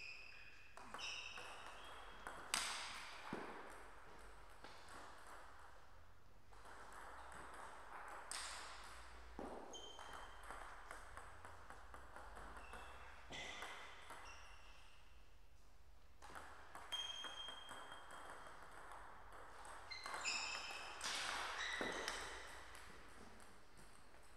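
Table tennis rallies: the ball clicking off rubber bats and bouncing on the table in quick strokes, in about four short rallies separated by pauses.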